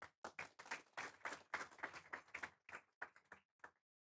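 Audience applauding, the claps thinning out and stopping about three and a half seconds in.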